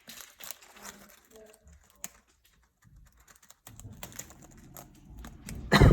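Pet bird pecking and biting at a plastic biscuit packet: scattered small clicks and taps. A brief louder sound right at the end.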